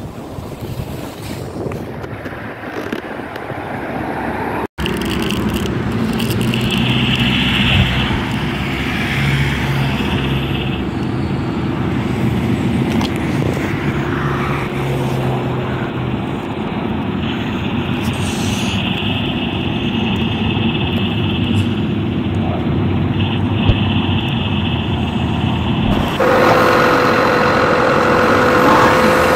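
Edited road-vehicle soundtrack: a continuous car-engine drone with road traffic. It cuts abruptly about five seconds in and changes to a higher steady hum near the end.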